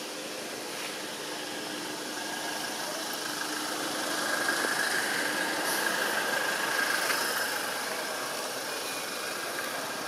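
A motor engine running steadily, growing louder around the middle and easing off again, like a vehicle going by.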